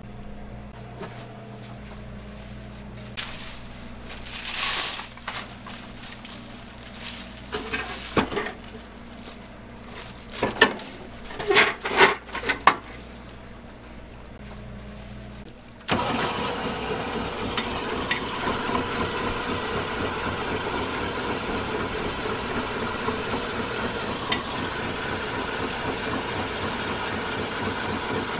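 Knocks and clatter of food prep for the first half. About halfway through, an electric bingsu shaved-ice machine switches on suddenly and runs steadily, shaving ice.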